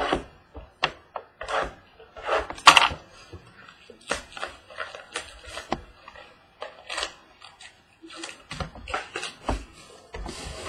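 Irregular clicks, taps and crinkling of sealed trading-card boxes and their packaging being handled and opened, with a short rustle near the end.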